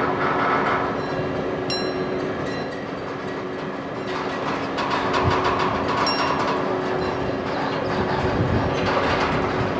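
Harbour gantry crane running, with metal-on-metal squealing over a steady mechanical drone. Short high squeaks come about 2 s and 6 s in, and the squeal grows louder between about 5 and 7 s.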